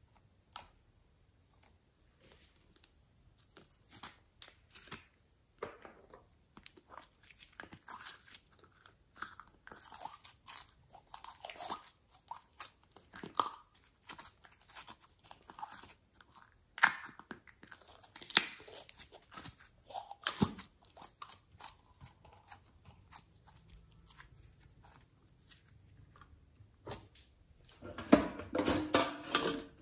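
Glossy slime being handled: scattered sticky crackles and squelches as thick pink slime is squeezed out of a plastic bottle into the tray, getting denser as it goes, with the loudest run of crackling near the end.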